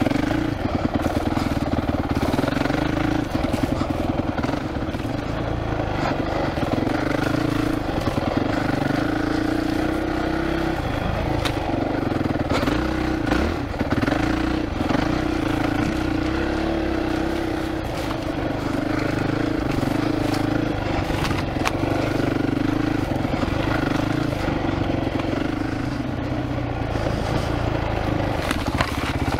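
Honda CRF450X's single-cylinder four-stroke engine running while riding, its pitch rising and falling with the throttle and easing off briefly around the middle. Occasional sharp clicks and knocks sound over it.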